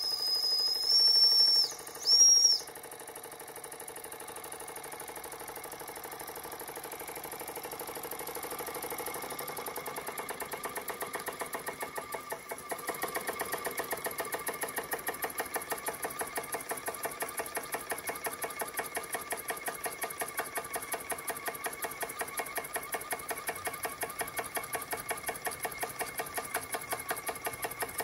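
Jensen 25GR toy steam engine's boiler whistle blowing two shrill blasts, the first long and the second short, then the engine running with an even rhythmic chuff that builds and quickens over about ten seconds and then holds steady.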